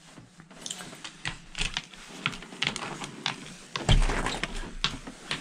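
Handling and movement noise: a string of irregular clicks and taps, with a heavy low thump about four seconds in followed by a brief rumble.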